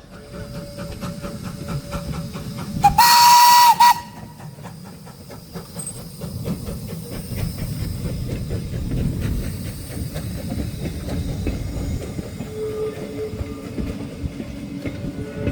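A steam locomotive gives one loud, shrill whistle blast of about a second, about three seconds in. Before and after it the train runs by with a steady rumble and the rhythmic clatter of its wheels on the rails.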